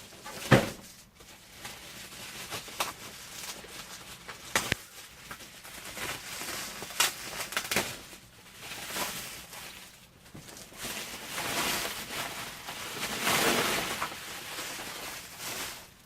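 Packaging being handled: scattered knocks and taps, the sharpest about half a second in, with a longer stretch of rustling and sliding near the end.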